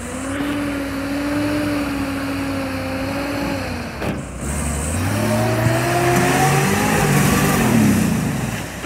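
Old ex-RAAF military truck's engine pulling under load: a steady note for about four seconds, a brief dip, then the revs climb for several seconds before falling away near the end.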